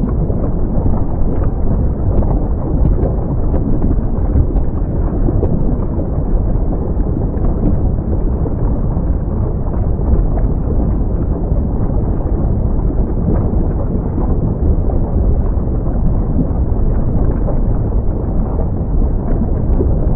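Mount Semeru erupting: a steady, loud, low rumbling roar with no let-up, and a few faint crackles.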